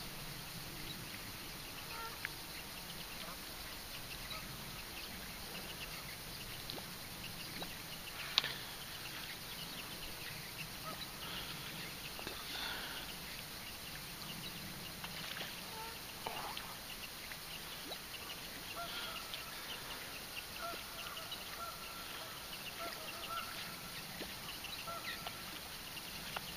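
Faint outdoor ambience with scattered distant bird calls, and one sharp click about eight seconds in.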